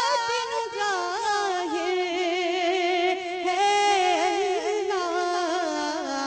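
A woman singing a devotional hamd solo into a microphone, unaccompanied: one voice holding long notes with a wavering vibrato and melodic turns, dropping to a lower pitch near the end.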